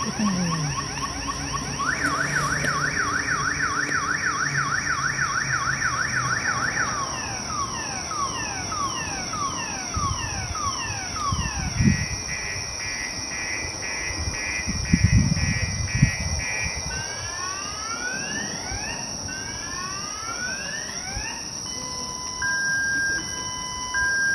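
Car alarm siren cycling through its tones: a fast warble, then a rapid yelp, slow falling sweeps, a steady trill, rising whoops, and on-off beeps near the end. A few low thumps come in the middle.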